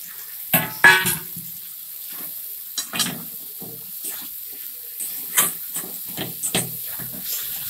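Metal spatula stirring and scraping fried potato pieces through sautéing masala in a metal kadai, with repeated scrapes and knocks against the pan, the loudest about a second in, over a steady sizzle of the spices frying in oil.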